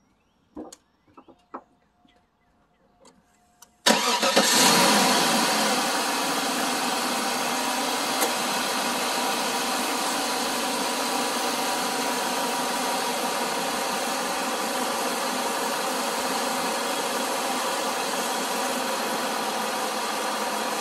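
A 2004 Cadillac DeVille's 4.6-litre Northstar V8 starting about four seconds in after a few faint clicks, louder for the first couple of seconds and then settling to a steady idle. It idles evenly with no rattles or clicking, a sign of an engine in good health.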